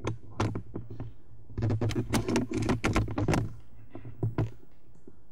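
A series of light clicks and knocks, scattered at first and then coming thick and fast for about two seconds in the middle, over a low steady hum.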